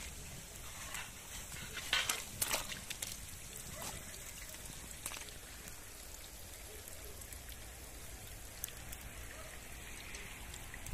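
A perforated steel skimmer scraping and clinking against a cast-iron cauldron several times in the first half, as pork cracklings are scooped out of the hot rendered lard. A steady soft hiss runs underneath.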